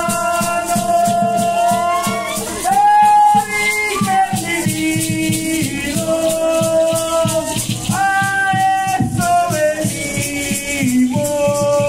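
Conchero ancestral chant: singing in long held notes that slide from one pitch to the next, over dancers' rattles shaken in a quick, even beat.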